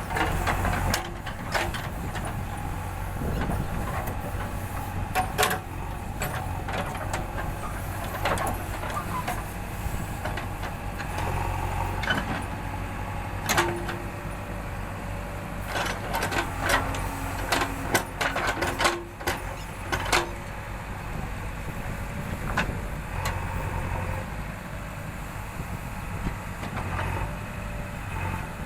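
Backhoe loader's diesel engine running steadily, with many sharp metallic clanks and knocks at irregular times as the machine works.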